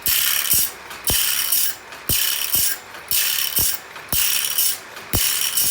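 Automatic band saw blade sharpening machine working through the teeth: about once a second the grinding wheel hisses against a tooth for about half a second, then a sharp mechanical click as the machine moves on to the next tooth.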